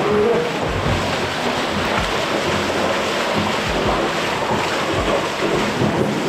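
Close, loud rush of a small waterfall splashing onto rock, with low thuds of footsteps in the water about every half second to second.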